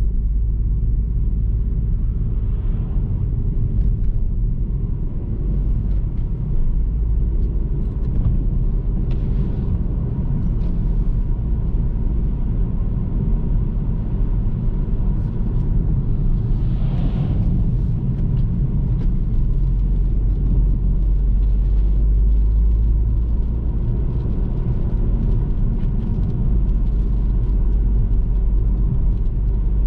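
Car on the move: a steady low rumble of engine and road noise, with a short hiss a little past halfway.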